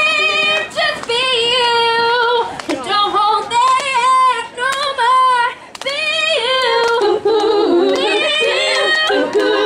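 A female pop vocal group singing live into handheld microphones over a PA, with several voices overlapping from about seven seconds in.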